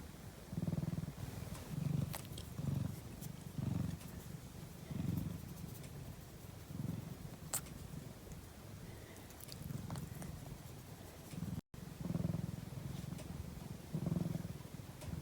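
Domestic cat purring while napping: a low, continuous rumble that swells and fades with each breath, about every one to two seconds. A few faint clicks sound over it.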